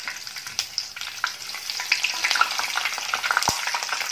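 Slit green chillies sizzling in hot oil as they deep-fry in a wire-mesh strainer, with many small crackling pops.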